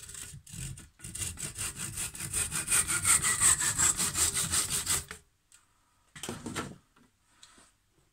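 Hand saw cutting through a wooden dowel held in a bench vise: a couple of short starting strokes, then quick, even back-and-forth strokes for about four seconds until the cut is through. A brief clatter follows about a second later.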